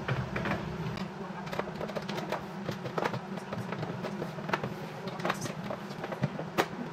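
Scattered plastic clicks and knocks as a SodaStream Terra carbonator is tipped and handled while its CO2 gas cylinder is being fitted, over a steady low hum.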